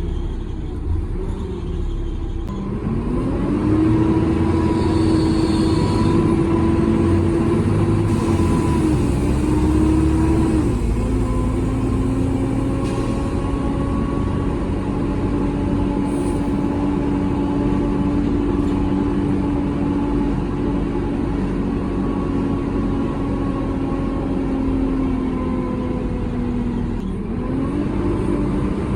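Volvo B7TL bus engine and Voith automatic gearbox under way. The whine rises about three seconds in, drops at a gear change about ten seconds in, holds steady, then rises again near the end.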